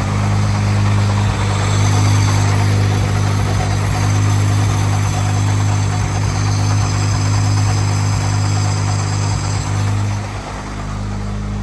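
Turbocharged Honda Civic engine idling steadily while warming up, with a brief dip in the idle about ten seconds in.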